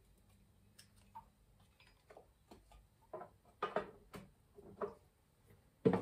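Light, irregular clicks and knocks of items being handled at a kitchen counter, with a louder knock near the end as a wall cupboard door is pulled open.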